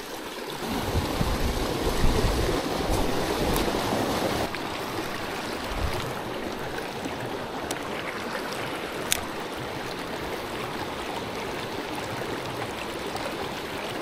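Shallow rocky creek running over stones: a steady rush of water, louder for the first few seconds. A single sharp click about nine seconds in.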